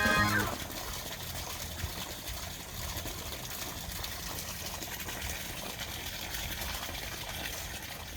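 Water running steadily into a garden pond, an even trickling and splashing. Background music ends about half a second in.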